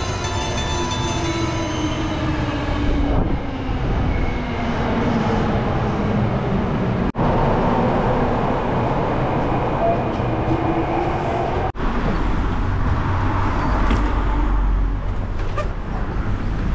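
Kyoto subway train at an underground platform: running noise with a motor whine that falls in pitch over the first few seconds, then after a cut another train's running noise with a whine rising in pitch. After a second cut, a low steady rumble from inside a taxi on the road.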